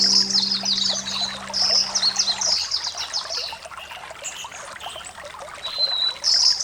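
A songbird singing rapid high trills, two phrases early on and another near the end, after a thin whistled note. Steady trickling water runs beneath it.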